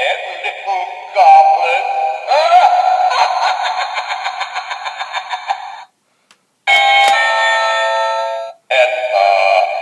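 Battery-operated animated Halloween vampire doorbell playing its electronic spooky voice and sound effects, warbling and gliding in pitch. It breaks off for under a second about six seconds in, then plays a steadier chime before the voice effects resume.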